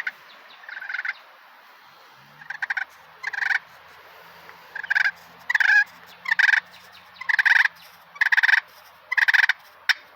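Slate turkey pot call in a mahogany pot, played with a striker drawn back across the slate in about ten short purrs, each a quick rattling purr lasting under half a second.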